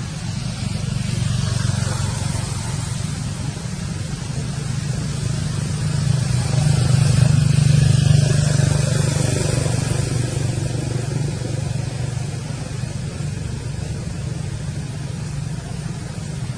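A motor vehicle's engine running, swelling louder to a peak about halfway through and then slowly fading, as when a vehicle passes by.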